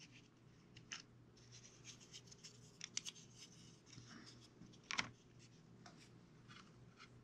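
Quiet, scattered small clicks and rustles of a plastic Gorilla Glue squeeze bottle being handled and pressed against a wire on a clay block, with one sharper click about five seconds in. A faint steady hum runs underneath.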